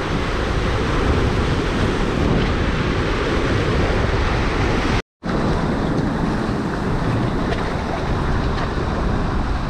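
Sea surf washing and churning between shoreline boulders, with wind buffeting the microphone. The sound cuts out for a split second about halfway through.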